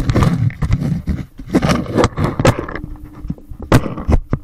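Loud scraping and rustling of gear right against a small action camera's microphone, broken by irregular sharp knocks.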